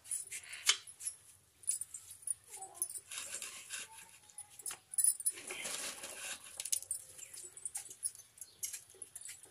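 Crackling and sharp clicks from a wood fire burning in a clay stove, with a few brief animal whines between about two and four seconds in and a short rush of noise near the middle.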